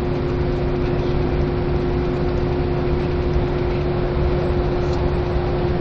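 Long-distance coach heard from inside the cabin while cruising: a steady drone of engine and road noise, with a hum held at one pitch throughout.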